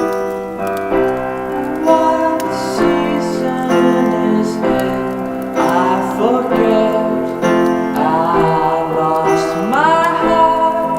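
Piano music with slow held chords; from about six seconds in, a melody with sliding, bending notes plays over it.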